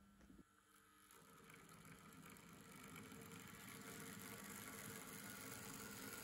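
A small electric model locomotive, built on a 1970s Arnold steam-loco chassis, running along the track. Its motor and gearing make a steady whir that grows gradually louder as it approaches, after a few light clicks at the start.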